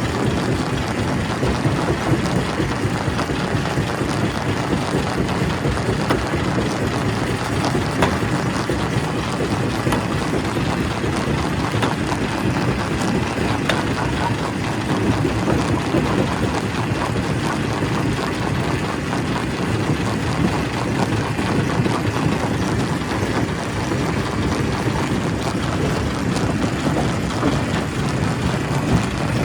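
Quarry primary rock crusher running steadily under load, a dense low mechanical din with scattered sharp cracks and knocks of stone being broken.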